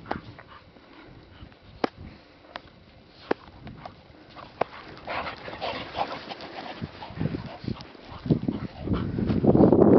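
Bull terriers at play: several short sharp yips and whimpers, with a rougher stretch of vocalising midway. A louder rough, scuffling noise builds near the end.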